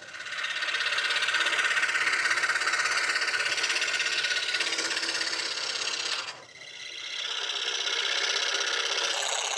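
Scroll saw running and cutting an oval opening in a thin wooden panel: a fast, even buzz of the up-and-down blade. The sound drops away briefly about six seconds in, then picks up again.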